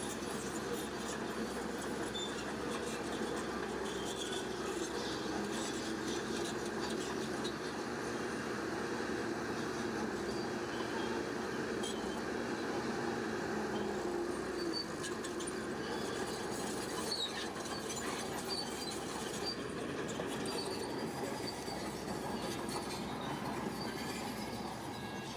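Shantui crawler bulldozer working, its diesel engine running steadily under its steel tracks, with scattered short high squeaks and clinks from the tracks.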